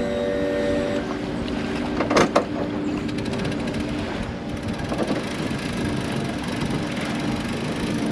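An engine running steadily at idle, with a couple of sharp clunks about two seconds in, as the boat is loaded onto its trailer.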